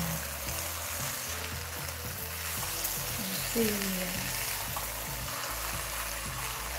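Jollof rice sizzling gently as it toasts on low heat in a pot, stirred and scraped with a silicone spatula. A short tone falling in pitch about three and a half seconds in.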